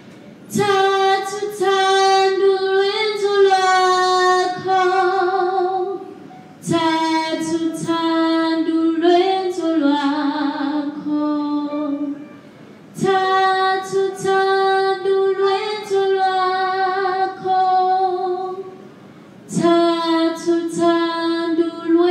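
A woman singing solo and unaccompanied, in four long phrases of held notes with vibrato, separated by short breaks.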